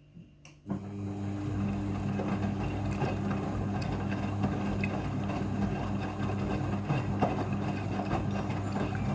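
Midea front-loading washing machine during a rinse: a couple of small clicks, then under a second in it starts with a sudden steady hum over a noisy rush that holds without change.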